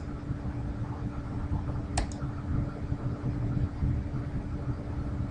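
Steady hum of a computer fan with a constant low tone, and a quick double click of a mouse button about two seconds in.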